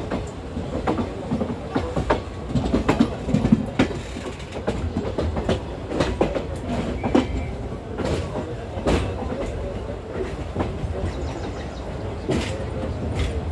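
ICF passenger coach wheels running over rail joints and points: an irregular clickety-clack of sharp knocks over a steady rumble, busiest and loudest in the first few seconds.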